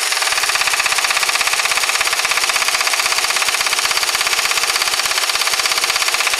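Pneumatic impact wrench (air gun) hammering continuously and rapidly as it tightens the nut at the centre of the front wheel hub on a newly fitted drive shaft.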